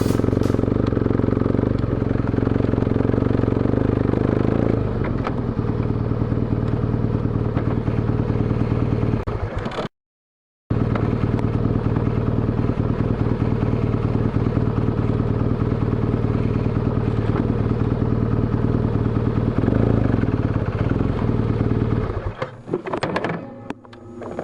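BMW R1200GS boxer-twin engine running steadily under way. The sound breaks off for a moment about ten seconds in and stops about two seconds before the end, giving way to some clatter.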